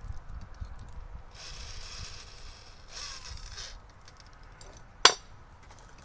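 Tools and a small metal part being handled on a wooden workbench: two short scrapes, then one sharp metallic clink about five seconds in.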